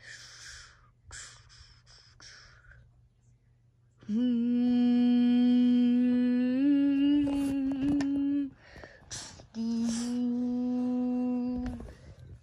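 A person's voice humming two long held notes, the first about four seconds long with a small step up in pitch partway through, the second about two seconds long. Before them come a few short breathy hissing sounds.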